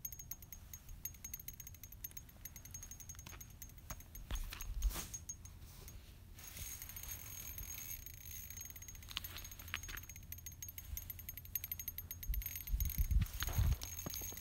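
Small spinning reel on a light ice-fishing rod clicking as it is worked against a hooked pike. There are a few low rumbles about five seconds in and again near the end.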